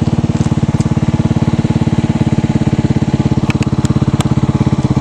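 A small engine idling steadily close by, with an even, rapid pulsing beat.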